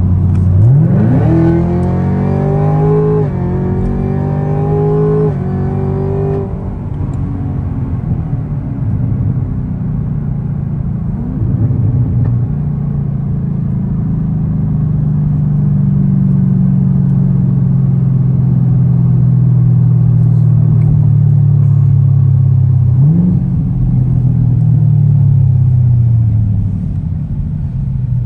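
Camaro ZL1's supercharged 6.2-litre V8, heard from inside the cabin, making a hard full-throttle pull from about half a second in. The revs climb steeply and drop back at three quick upshifts over some six seconds. The engine then settles into a steady lower drone that slowly falls as the car cruises and slows, with one brief rise in revs near the end.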